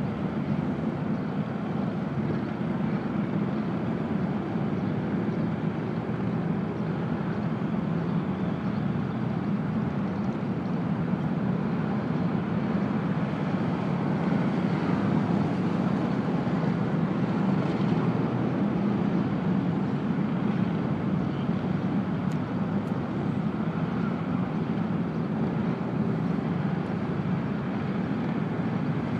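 Steady low rumble of vehicle engines and traffic, even throughout with no distinct events.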